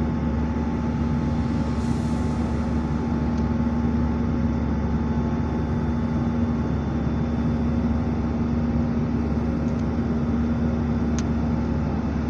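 Steady cabin noise inside an Airbus A319 airliner: an even drone of the engines and airflow with a strong low hum.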